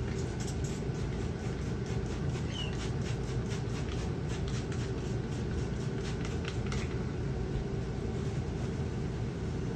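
Rag rubbing glue residue off a truck tailgate's painted surface: quick scratchy wiping strokes, about four or five a second, which stop about seven seconds in. Under them runs a steady low rumble.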